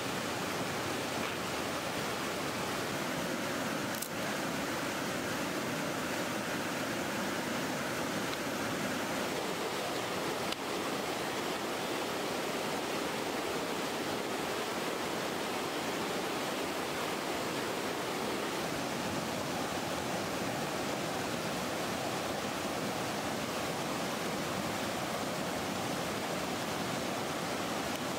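River water rushing over rocks in shallow rapids: a steady, unbroken rush.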